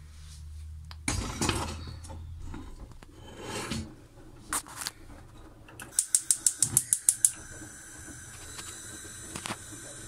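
Pressure cooker knocked and scraped on the metal grate of a gas hob, then the hob's spark igniter clicking rapidly, about eight clicks in just over a second, until the gas burner lights.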